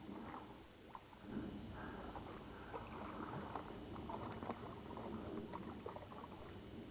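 Faint, uneven water splashing from a hooked catfish rolling and thrashing at the surface as it is reeled toward the riverbank.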